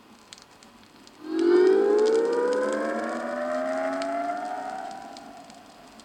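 Stereo test-record signal for checking loudspeaker polarity: a siren-like rising tone with several overtones that comes in about a second in, swells quickly and slowly fades over about four seconds. With correctly polarized speakers it moves from between the loudspeakers out into the room. Faint record-surface clicks are heard throughout.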